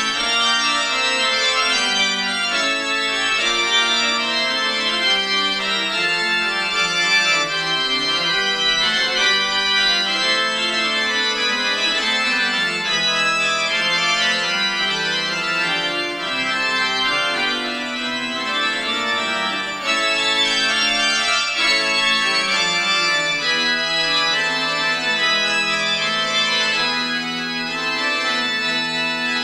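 Church organ playing a piece of chords, a held low note under moving upper lines.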